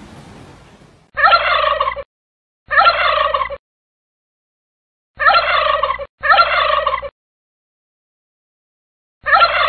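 White domestic turkey tom gobbling: five gobbles of about a second each, the first about a second in and the last near the end, with dead silence between them.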